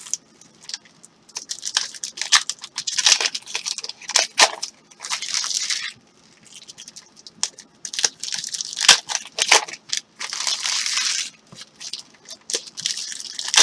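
Stack of football trading cards being flipped through by hand: repeated sliding swishes and sharp card snaps, in bursts with short pauses between them.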